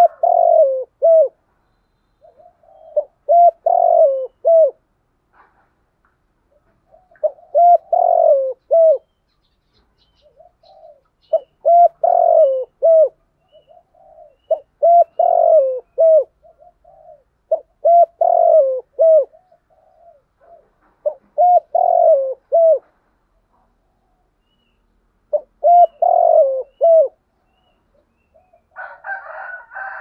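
Spotted dove cooing: short phrases of several low notes, each phrase ending on a falling note, repeated about every three to four seconds. Near the end there is a short, rougher, higher-pitched burst.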